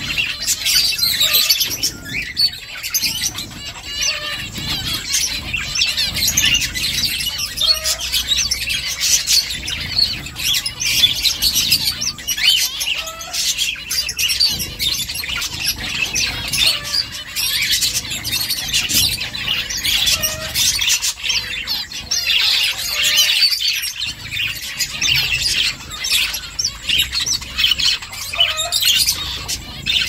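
A flock of zebra finches chirping, with many short calls overlapping in a steady, unbroken chatter.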